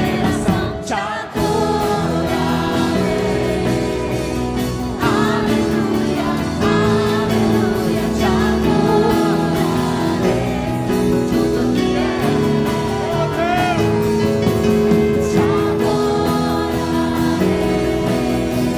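Christian worship song: voices singing over held instrumental chords.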